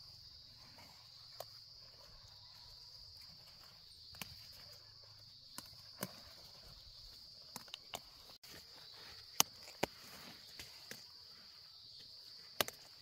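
Steady high-pitched insect drone, with about a dozen sharp clicks and snaps scattered over it, the loudest near the end.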